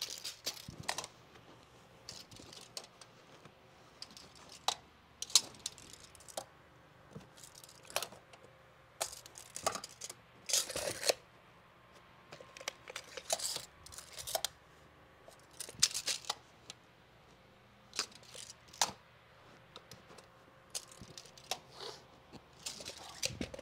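Faint, scattered rustles, scrapes and small clicks of a tape measure and hands working over a carpet stair runner during measuring.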